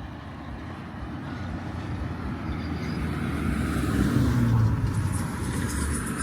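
A car driving past, its road noise growing louder to a peak a little over four seconds in and then easing off.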